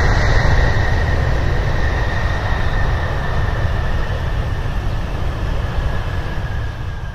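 Twin-engine turboprop airliner at take-off power, lifting off and climbing away: a steady engine roar with a high propeller whine, slowly fading as it departs.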